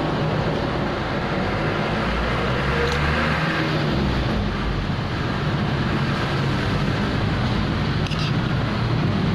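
Steady background traffic noise with a low rumble, and a couple of light clicks of a metal spoon against the plate about three and eight seconds in.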